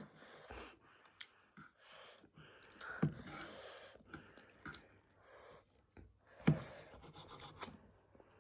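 A person eating close to the microphone: quiet chewing and mouth sounds with scattered small clicks, and two sharper clicks about three and six and a half seconds in.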